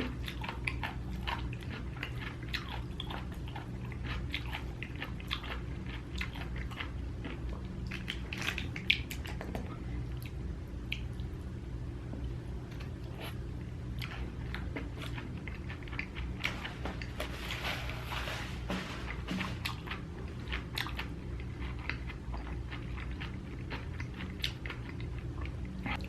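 Close-miked chewing and biting, with many small wet mouth clicks and smacks as food is eaten.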